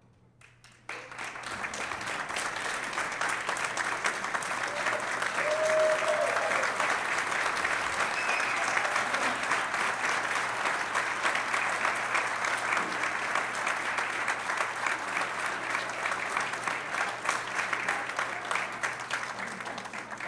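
After a second of hush, an audience starts applauding and keeps up steady clapping.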